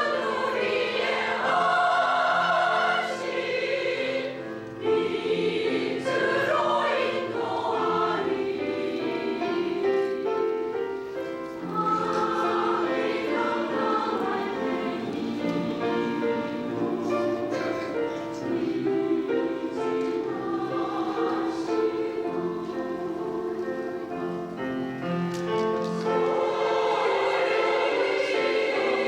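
Women's choir singing a Korean song with piano accompaniment.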